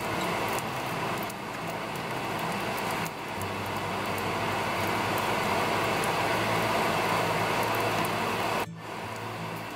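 French toast frying in a nonstick pan: a steady sizzling hiss with small crackles, dipping briefly about three seconds in and again near the end.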